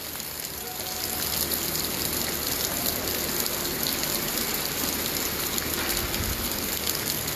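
Steady rain falling on a flooded road and pavement, an even hiss, with a faint low hum underneath.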